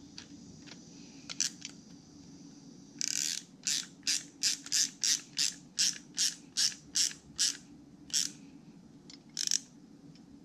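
Ratcheting wrench clicking in a quick, even run of about fifteen strokes, roughly three a second, as a fitting is wrenched into a carburetor body, with a few single clicks before and after. A low steady hum runs underneath.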